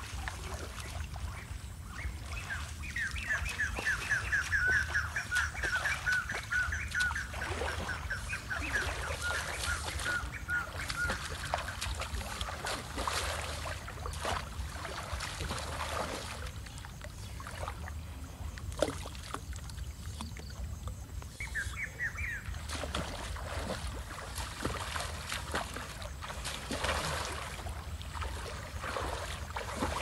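Legs wading and splashing through shallow river water as a scoop net is swept along, with a bird calling a long rapid series of repeated notes in the first third and a short burst again about two-thirds of the way in.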